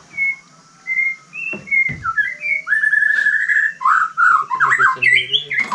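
Loud whistled notes: a few short high notes, then sliding notes, one held note and a quick warbling run that grows louder towards the end.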